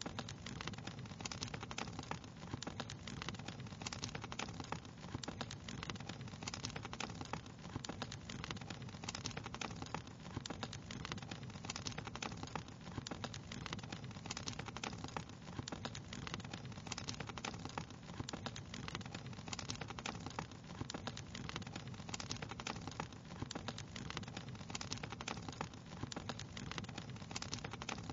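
Wood fire crackling steadily: dense, irregular pops and snaps over a steady low rumble.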